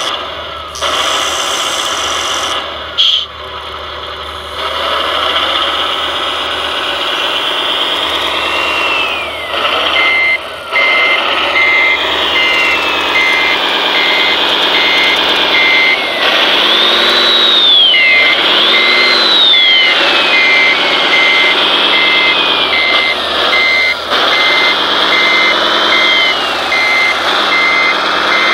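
Simulated diesel engine sound from the sound modules of large-scale RC construction models, running and revving up and down, with a reversing alarm beeping about twice a second from about ten seconds in, briefly pausing near the middle.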